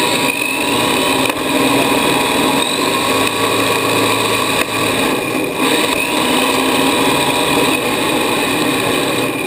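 Radio-controlled drift car heard from a camera mounted on it: a loud, steady rush of motor and tyre noise as it drives and slides, with a motor whine that rises in pitch now and then.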